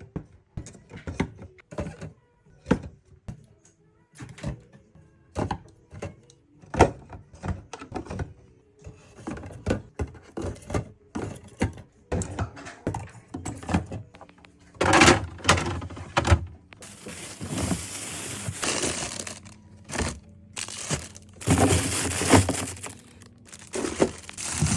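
Groceries being handled and put away: a run of knocks and thunks as items are set down, with plastic packaging crinkling in long stretches in the second half.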